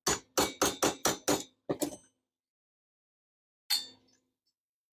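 A hammer tapping a metal candlestick-holder piece clamped in a bench vise: about eight quick, ringing metal-on-metal taps in the first two seconds, then a single clank near the end.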